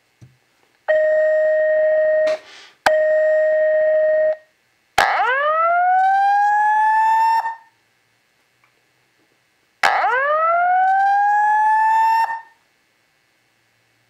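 An Edwards/EST Integrity 757 speaker/strobe, on its 1-watt tap, sounds the alert tones of a Simplex voice-evacuation message. First come two steady beeps of about a second and a half each. Then come two slow whoops, each rising in pitch over about two and a half seconds.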